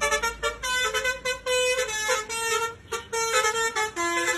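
Bus telolet horn of the 'basuri V3' type playing a quick melody of short, changing notes.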